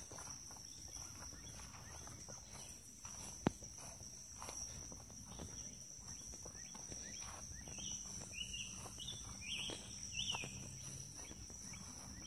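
Faint footsteps of someone walking, over a steady high insect drone such as crickets. There is one sharp click about three and a half seconds in, and a run of short falling chirps near the end.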